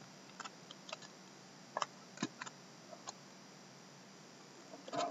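A few light, irregular clicks and taps, spaced out over a quiet room background, with a small cluster near the end.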